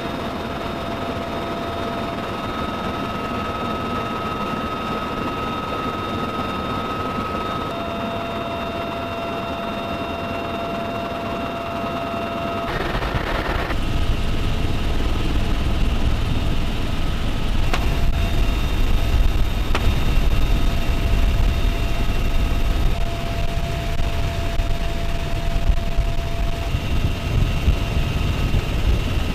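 Military helicopter running: a steady whine of several tones over rotor and wind noise. About halfway through, the low rumble grows louder and stays up.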